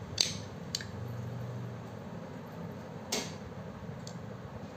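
Sharp metallic clicks of a screwdriver working inside a Hitachi angle grinder's housing at its bearing: two close together at the start, the first the loudest, and another about three seconds in, over a faint low hum.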